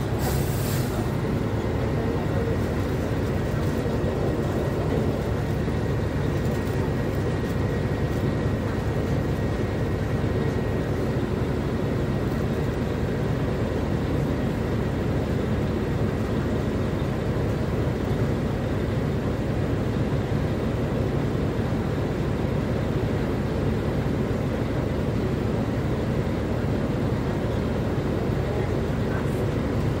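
Mercedes-Benz O500U city bus's diesel engine running steadily, heard from inside the passenger cabin as a constant low rumble. A short hiss comes right at the start.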